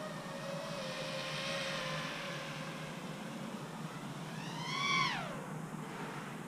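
FPV quadcopter's brushless motors whining, the pitch wandering up and down with the throttle. About four and a half seconds in, a burst of throttle sends the whine sharply higher and louder, then it drops away quickly.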